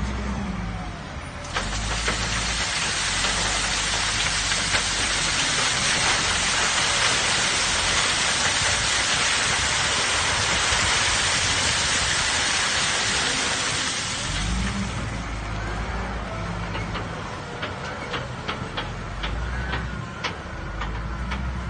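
Gravel tipped from a wheel loader's bucket pours and rattles down an inclined steel screen, a loud steady hiss of running stones that starts about a second and a half in and stops about fourteen seconds in. The loader's diesel engine runs underneath throughout, and after the pour there are scattered clicks of stones.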